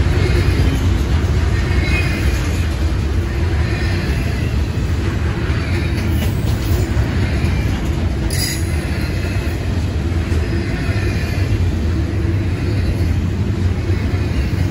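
Double-stack intermodal container train rolling past: a loud, steady rumble of well-car wheels on the rails, with faint high wheel squeals coming and going every couple of seconds and a brief sharp squeak about eight seconds in.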